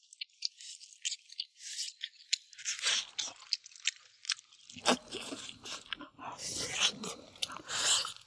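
Close-up eating sounds of a person biting and gnawing meat off a braised spicy beef backbone held in the hands: a run of short crackles and clicks. It gets fuller and louder from about five seconds in.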